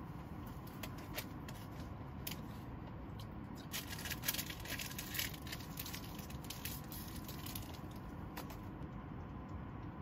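Plastic snack packet crinkling and rustling in the hands in scattered short crackles, busiest in the middle, over a steady low background hum.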